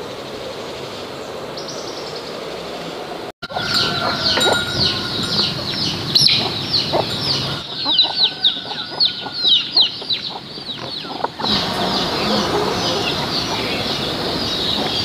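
Chickens peeping: many short, high, falling peeps, rapid and overlapping, starting abruptly a few seconds in and cutting off abruptly near the end. Before and after them there is only a steady background hum.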